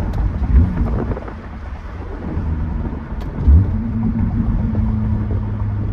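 Honda Accord's K24A4 four-cylinder engine, with a short-ram intake and HKS muffler, heard from inside the cabin while driving at low revs; its hum dips about a second and a half in and returns steady from about four seconds in. Two short low thumps, about half a second and three and a half seconds in.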